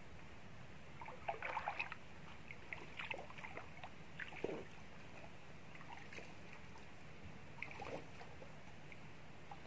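Water sloshing and splashing in short irregular bursts as a person wades through flooded swamp forest. The bursts come about a second in, again around three to four and a half seconds, and once more near the end.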